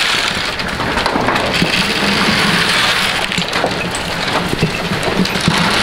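Goat feed pellets rattling and crunching against a plastic feed trough right at the microphone: a dense, steady patter with many small clicks, like rain on a surface.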